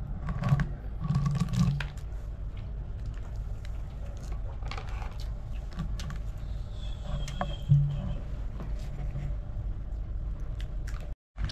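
Steady low drone of a passenger ship's engines, with scattered light clicks and a few brief muffled knocks, the loudest about a second in and again near eight seconds.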